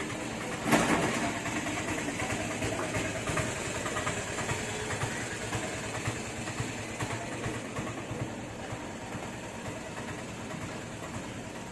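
Steady background noise of the kind of a running engine or passing traffic, with a single sharp knock about a second in.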